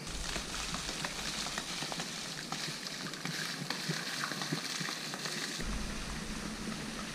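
Water jets spraying and splashing onto the surface of a natural-water swimming pool: a steady fizzing hiss with small crackles. It changes abruptly to a quieter, duller outdoor ambience near the end.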